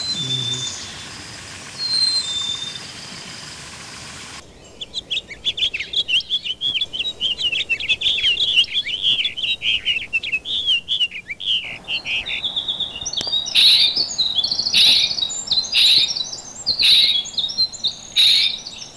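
Birdsong in three spliced sections: a few scattered chirps, then a dense run of fast warbling chirps, then a string of loud calls about once a second.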